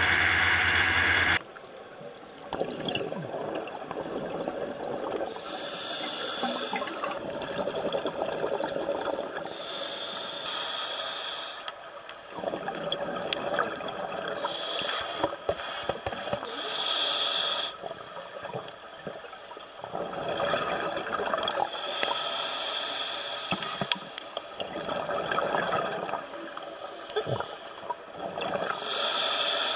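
Scuba divers breathing underwater: bursts of exhaled bubbles from their regulators, each one to two seconds long, come every few seconds, with the hiss and gurgle of breathing in between. It opens with about a second and a half of a speeding dive boat's engine and rushing water before a sudden cut.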